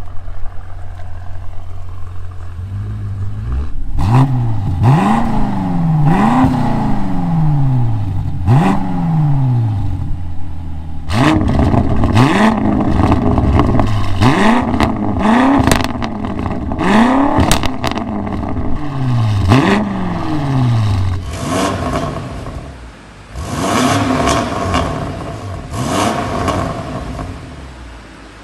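BMW F90 M5's S63 twin-turbo V8 through an aftermarket exhaust, revved in repeated quick blips from idle, each rising and falling in pitch. The engine idles steadily at first, then is blipped again and again, with abrupt cuts between clips.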